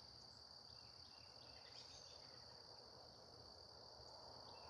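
Faint outdoor ambience: a steady, high-pitched insect trill, with a few faint short chirps.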